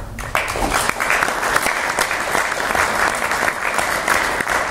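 Audience applauding: many people clapping, breaking out suddenly and continuing steadily.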